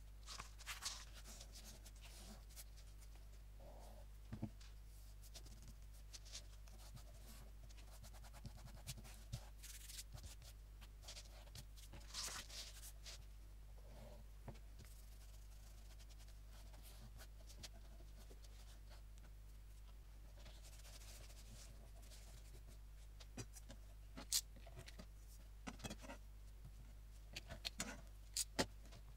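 Hands rubbing, smoothing and pressing glued paper and bookcloth onto cardboard book covers on a cutting mat: faint, scattered scratching and brushing sounds, with a few sharp taps near the end. A low steady hum lies underneath.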